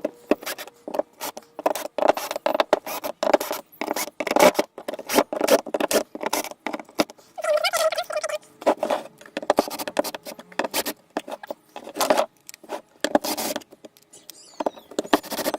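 Hand screwdriver working at the screws of a glued wooden casting mould: irregular scraping and clicking of metal on screw heads and wood, with a brief squeak about eight seconds in.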